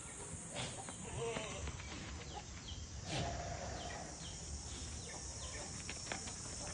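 Short animal calls and chirps, one held call about three seconds in, over a steady high-pitched hiss.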